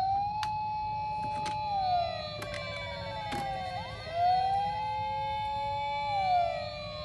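Several electronic toy ambulance sirens sounding at once, their overlapping wails rising, holding and falling in pitch, with a few sharp clicks.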